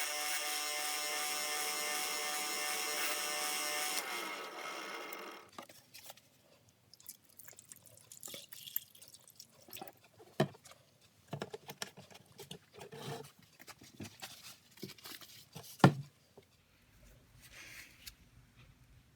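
A power tool running with a steady whine, then winding down and stopping about four to five seconds in; after that, faint scattered clicks and light taps.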